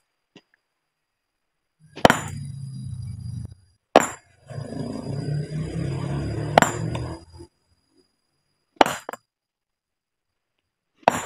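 Sledgehammer striking a large stone boulder, five sharp blows about two to two and a half seconds apart. A low steady drone runs underneath from about two to seven seconds in.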